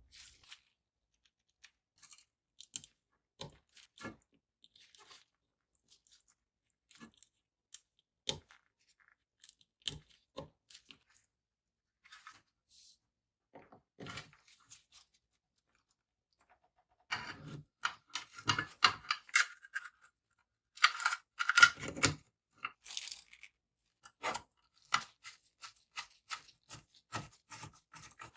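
Handling noise from small hard parts and packaging: scattered light clicks and taps, with a louder stretch of crinkling and rustling about two-thirds of the way in.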